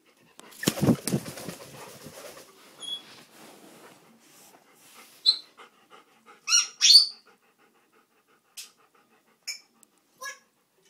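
A dog panting close to the microphone, then a parrot's short whistles and squawks: two loud calls about six and seven seconds in, and a few brief chirps near the end.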